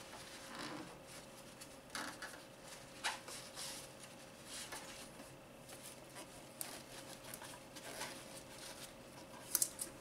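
Faint rustling, scraping and scattered clicks of gloved hands working in a car's engine bay, handling wiring and a rubber radiator hose, with two sharp clicks near the end over a faint steady hum.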